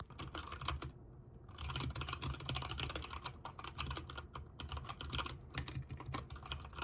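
Typing on a HyperX Alloy Origins mechanical keyboard: a few keystrokes, a brief pause about a second in, then fast, continuous key clicking over a low hum.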